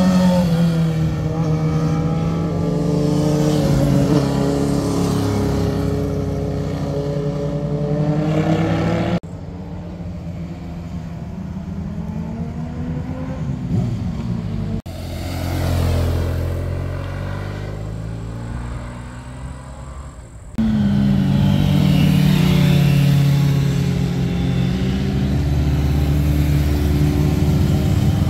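Motorcycles riding through a hairpin bend in turn, first a Suzuki sportbike. Each engine drops in pitch as it slows into the bend and rises as it accelerates out. The sound cuts abruptly from one bike to the next three times, and the middle two passes are quieter.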